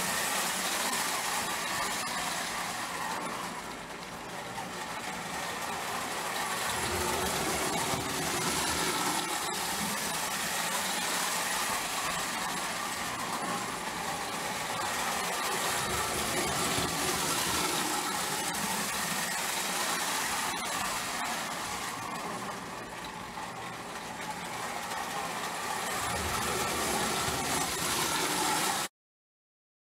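Marx tinplate electric toy train running on three-rail tin track: steady motor whir and wheel rattle on the tin rails, swelling and fading as the train goes around the loop. The sound cuts off abruptly near the end.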